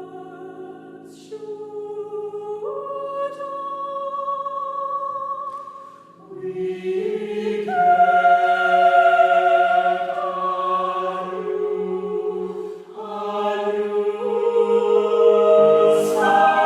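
Choir singing slow, sustained chords that change every few seconds, growing louder about six seconds in.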